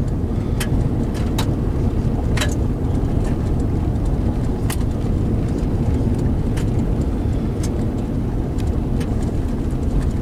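Car driving heard from inside the cabin: a steady low rumble of engine and tyres on the road, with scattered light clicks and ticks.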